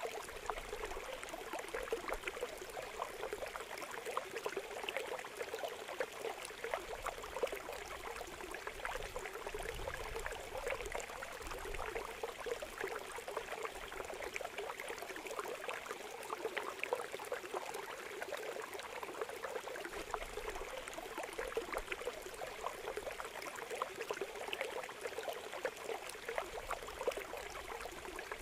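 Water pouring steadily through a channel cut in a mud bank into a woven bamboo basket trap, a continuous rush with the patter of many small fish splashing in the flow.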